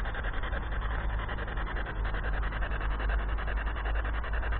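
Spirit box (ghost box) radio scanning the FM band: a steady hiss of static chopped into rapid stutters as it steps from frequency to frequency, with a low rumble underneath.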